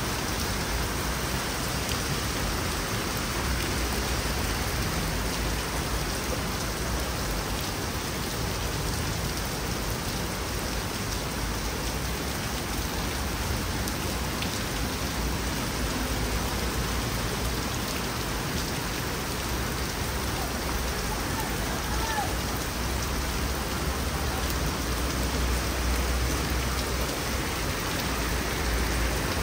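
Torrential rain pouring down steadily in a dense, even hiss on pavement and trees, black-rainstorm intensity. A low rumble swells under it at times, strongest near the end.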